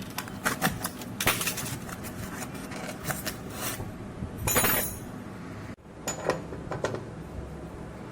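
Scattered sharp clicks, clinks and knocks of hard objects being handled, with a short louder rasping noise about halfway through.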